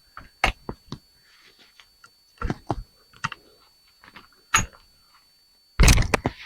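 Pliers and small metal parts clicking and knocking against a metal light fixture as wires are twisted out of it: scattered sharp clicks, then a louder clatter near the end.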